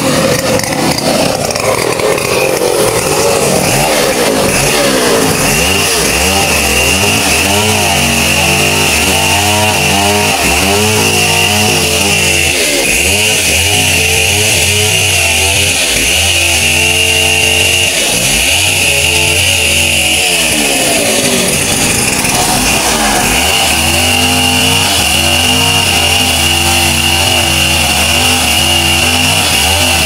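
Gasoline chainsaw running loud and steady at high revs, cutting into a mahogany log.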